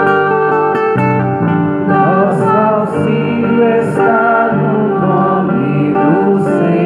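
A woman cantor singing the responsorial psalm into a microphone, with sustained instrumental accompaniment under her voice.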